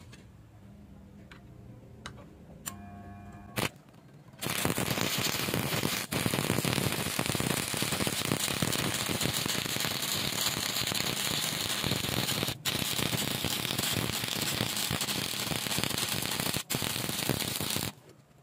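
Stick-welding arc with an E6013 rod at 70 amps. A few sharp ticks as the rod tip is scratched on the steel to strike the arc, then from about four seconds in the arc crackles and sizzles steadily, with three brief breaks, until it stops just before the end.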